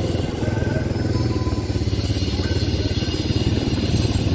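ATV quad-bike engine running steadily under way, with a fast, even firing pulse.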